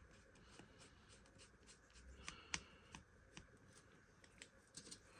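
Faint, scattered light clicks and taps of small model-locomotive parts being picked up and handled, with one sharper click about two and a half seconds in.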